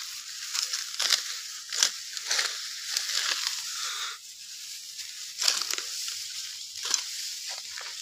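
Dry, ripe wheat stalks crackling and crunching close up as handfuls are gripped and cut by hand, with a run of sharp crunches at irregular intervals.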